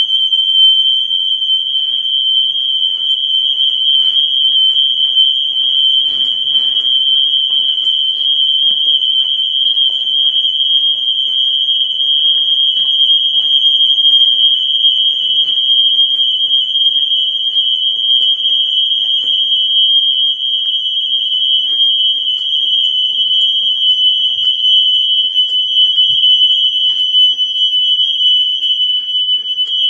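Electronic alarm sounding one continuous, unbroken high-pitched tone at a steady level, with no beeping pattern.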